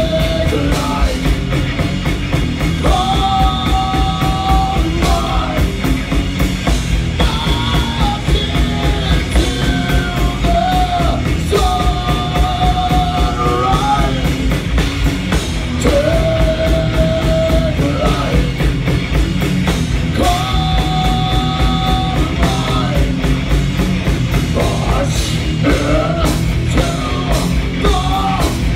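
Live heavy rock band playing loud on electric guitars and drum kit, with dense, rapid drumming. Long held notes bend at their ends and come back every few seconds.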